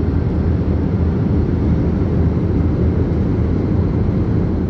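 Jet airliner cabin noise in flight, heard from inside the cabin: a loud, steady, low drone of the engines and airflow that does not change.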